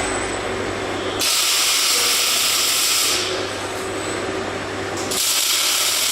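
Two loud hissing bursts of about two seconds each from a robotic welding installation, each starting and stopping abruptly, over a steady low machine hum.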